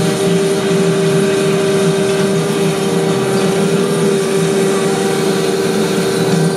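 Vacuum brick-laying paving machine running steadily: a constant engine hum with several steady tones.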